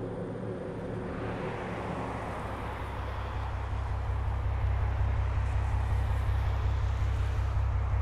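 A deep rumble with a rushing noise above it. It swells over the first few seconds and then holds steady and loud, pulsing evenly.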